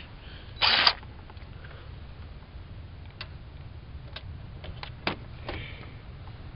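A cordless impact wrench gives one short burst of about a third of a second, just before the first second, then a few faint scattered clicks as the socket and extension are handled and fitted onto the turbo oil-feed banjo bolt.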